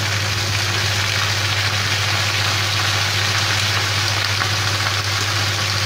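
Fresh spinach leaves sizzling steadily in hot oil in a frying pan, an even hiss, over a steady low hum.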